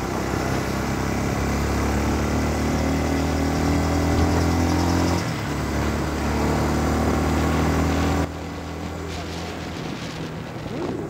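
Motorcycle engine pulling under throttle, heard from the rider's seat, its pitch climbing, with a short break about five seconds in, like a gear change. About eight seconds in the throttle closes and the engine falls back to a quieter, lower running sound.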